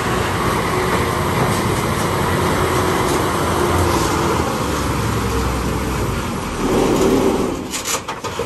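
Tata 16-wheeler tipper truck's diesel engine running hard under load as the truck crawls through deep mud, swelling louder about seven seconds in, with a few sharp knocks near the end.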